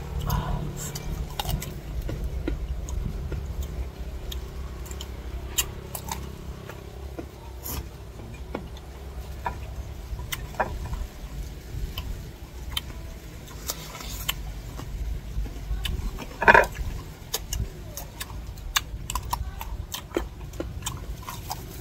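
Crunching and chewing of crisp raw green mango slices: a run of short sharp crunches and mouth smacks, one louder about sixteen seconds in, over a low steady rumble.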